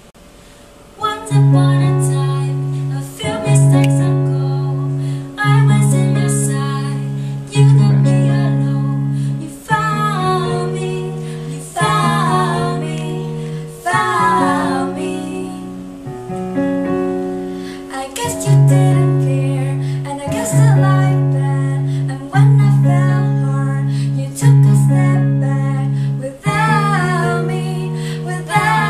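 Roland RD-150 stage piano playing held chords, a new chord struck about every two seconds, starting about a second in. Women's voices join, singing over it from about ten seconds in.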